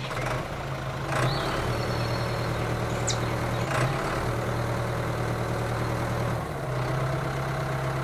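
Tractor engine idling steadily, a low even hum with a slight change in tone about six and a half seconds in, and a couple of short clicks over it.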